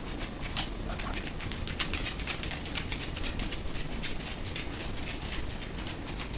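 Roomba robot vacuum running in its circular spot-clean pattern: a low steady hum with rapid, irregular clicking.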